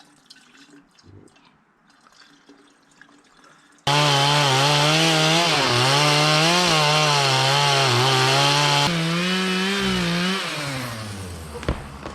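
An 18-inch chainsaw starts suddenly after about four seconds of faint sound and runs at high revs, its pitch wavering up and down. Near the end the revs fall and it winds down.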